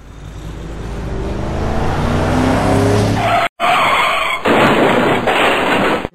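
Loud rushing sound effect that builds over about three seconds, breaks off sharply, then comes back harsher and stops suddenly.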